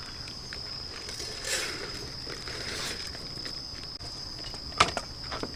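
A steady high-pitched trill of night insects such as crickets, with scattered small clicks and one sharper snap near the end.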